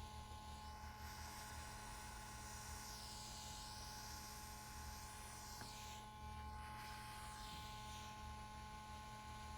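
Faint airy hiss of a hot air rework station desoldering MOSFETs from a circuit board, swelling and fading a few times, over a steady electrical hum with two thin steady high tones.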